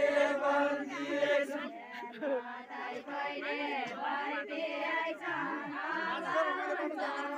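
A group of people singing a Nepali Deuda folk song together, unaccompanied, as a chant of many overlapping voices.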